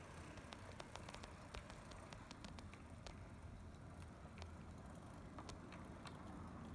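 HO-scale brass model train, a Southern Pacific MC-4 cab-forward locomotive followed by a passenger car, rolling slowly along the track. It makes a faint low hum with scattered, irregular light clicks from the wheels on the rails.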